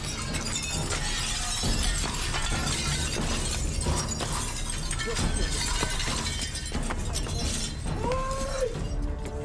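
A handheld steel battering ram striking a door again and again, with glass shattering and breaking.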